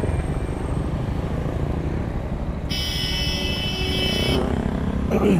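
Idling motorcycle engine and the rumble of city traffic at a stop. In the middle a high, steady horn sounds for about a second and a half, and near the end a passing engine's note falls quickly.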